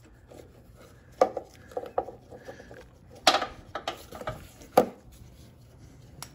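Irregular metal clinks and taps, about eight of them and loudest around the middle, as a hand tool works at the carburetor float bowl of a Briggs & Stratton Quantum lawnmower engine to loosen it.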